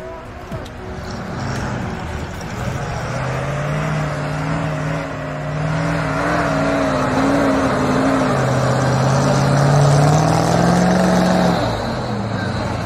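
GAZ-66 army truck's engine pulling under load as it fords a river and climbs a snowy bank. The note wavers and grows louder, rises in pitch near the end, then eases off.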